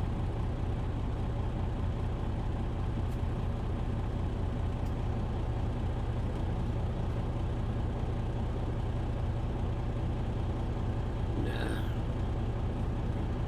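Steady low rumble of an idling truck engine.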